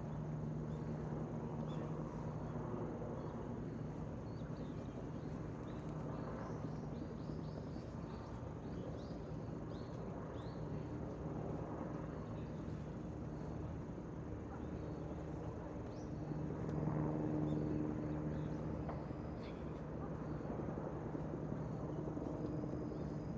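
Distant engine drone, a steady low hum with a rumble beneath, swelling briefly about two-thirds of the way through.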